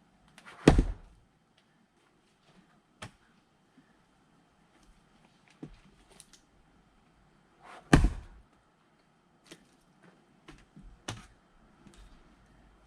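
Firewood being split with an axe: two loud strikes into the wood, one just under a second in and another about seven seconds later, with fainter wooden knocks in between and after.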